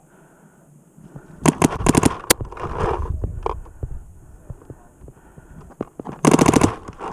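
Paintball marker firing two quick strings of shots: about six shots about a second and a half in, then a faster burst of seven or eight near the end.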